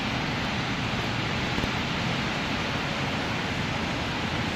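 Steady hiss of city traffic on wet, slushy streets: a constant wash of tyre and engine noise with no single vehicle standing out.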